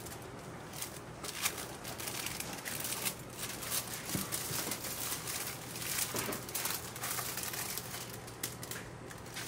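Baking paper rustling and crinkling in irregular crackles as it is peeled off the sides and top of a huge freshly baked Taiwanese castella sponge cake.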